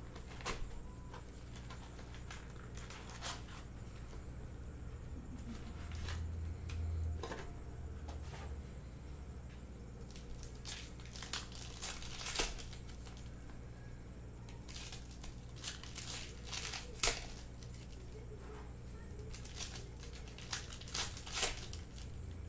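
Plastic wrapping on a Panini Prizm basketball retail box and its card packs being handled and torn open by hand: scattered sharp crinkles, crackles and tearing, with a steady low hum underneath.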